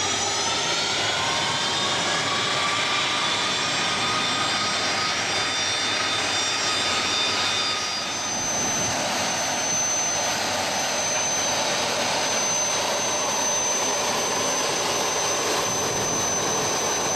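Fokker 100 jet airliner's rear-mounted turbofan engines whining steadily as it taxis. The tones rise a little at first, and about eight seconds in they give way to one high, steady whine.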